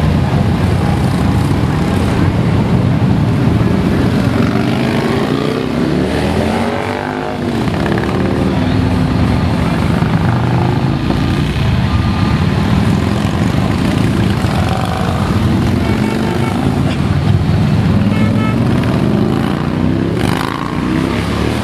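A procession of cruiser motorcycles passing one after another, their engines running low and loud, the pitch rising and falling as individual bikes go by.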